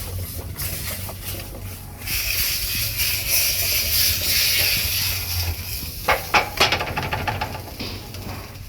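Chopped vegetables hissing and sizzling in a hot pan for about four seconds, followed by a few sharp clinks of a utensil against the pan.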